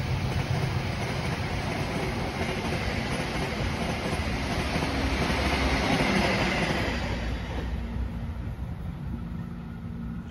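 Argo Semeru passenger train's coaches rolling past on the rails. The rumble dies away from about seven seconds in, once the last car has gone by.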